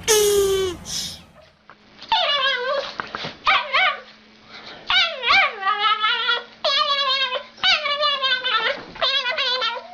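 A dog whining and yipping in a run of repeated, wavering pitched cries, each under a second long, after a brief falling cry at the very start.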